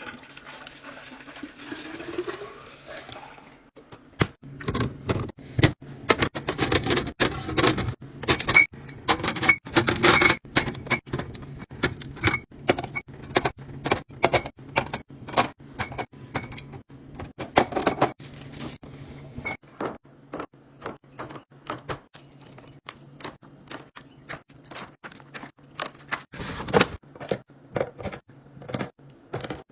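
Rapid, irregular clicks, knocks and clinks of containers and packaging being handled and set down while a fridge is restocked. A low steady hum comes in about four seconds in.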